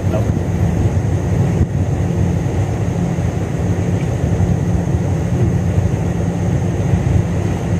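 Small boat's engine running steadily, a low drone with a faint high whine over it.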